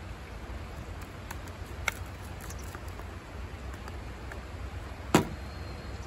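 Steady rush of a shallow river, with a light click about two seconds in and a sharp knock, the loudest sound, about five seconds in.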